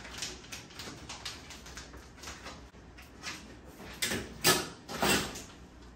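Linen curtain being handled and slid into place: short bursts of fabric rustling and scraping with small clicks. The three loudest strokes come about four to five seconds in.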